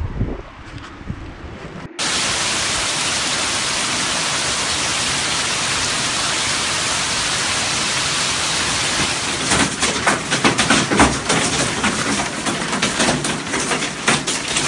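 Heavy hailstorm: a loud, steady hiss of hail coming down starts abruptly about two seconds in, and from about halfway it is broken by many sharp, irregular clicks and cracks of hailstones striking hard surfaces close by.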